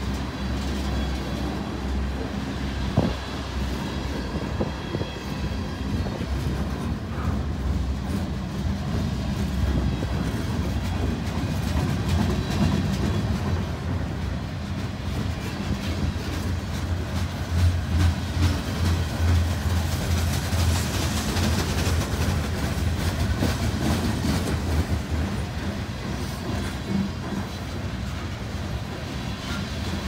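Freight train cars rolling past close by, tank cars and then covered hoppers: a steady rumble with the clatter of wheels over rail joints and one sharp knock about three seconds in.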